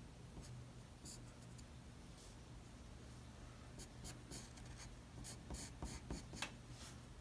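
2B graphite pencil sketching on paper: faint light strokes, then a run of short, quick strokes in the second half.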